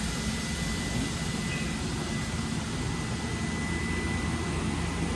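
OMNITURN GT-75 Series III CNC gang lathe jogging its spindle on the C-axis: a steady machine hum with a thin, high, even whine held for most of the time, stopping near the end.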